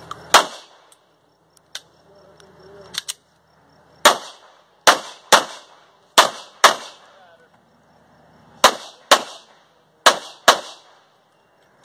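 Pistol shots fired in quick pairs, about ten loud cracks in all, with pauses of a second or more between the pairs, and a couple of much fainter shots in between.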